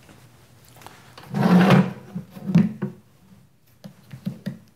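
A multimeter and its test leads being handled: a loud scuffing knock about a second and a half in, then several short clicks and knocks as the leads are hooked up.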